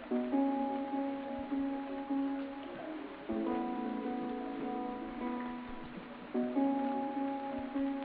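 Background music played on a plucked guitar, with held chords and a new chord struck about every three seconds.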